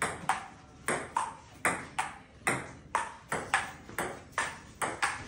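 Table tennis rally: the ball clicks off the paddles and the table in a fast, steady rhythm, about three hits a second, each with a short ringing ping.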